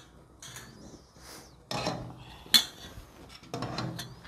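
Wire whisk scraping and clinking against a stainless steel pot while stirring a thick, cooked condensed-milk mixture, in uneven strokes with one sharp clink about two and a half seconds in.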